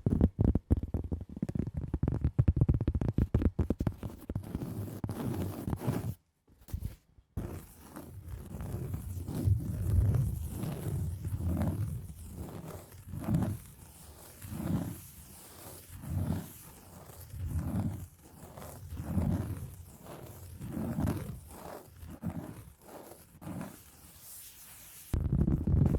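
Scratching and tapping on a cork pad and wooden block: a fast run of dense clicks and scratches, a brief pause, then slow scratching strokes that swell and fade about every second and a half, with the fast scratching returning near the end.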